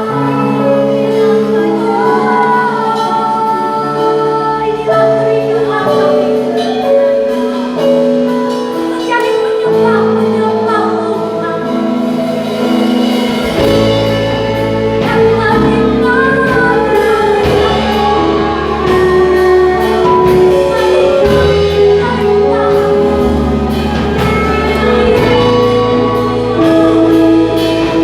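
Worship song with several voices singing held melodic lines over instruments; a deep bass line and a beat come in about halfway through.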